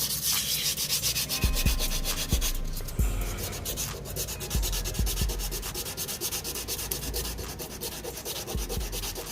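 Sandpaper rubbing over cured body filler on car sheet metal, a continuous scratchy rasp of quick, repeated strokes as the filler is smoothed down.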